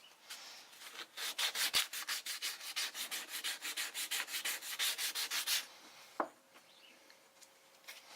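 Wooden lure body being sanded by hand, quick back-and-forth scratching strokes about five a second that stop about five and a half seconds in. A single sharp knock follows about a second later.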